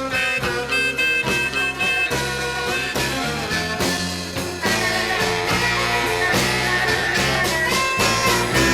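Electric blues record playing: an instrumental passage by a band between sung lines, with held, bending lead notes over a steady rhythm section.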